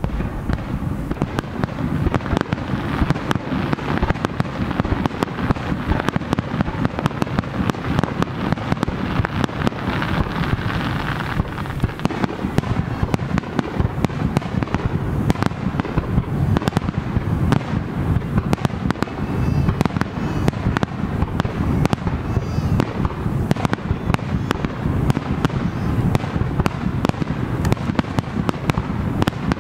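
Aerial fireworks display: shells bursting in a rapid, unbroken barrage of bangs and crackles over a heavy low rumble.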